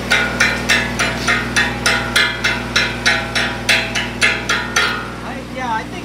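Chipping hammer striking a welded steel joint, about three sharp metallic blows a second, knocking slag off a fresh stick weld. The blows stop shortly before the end, and a steady low machine hum runs underneath.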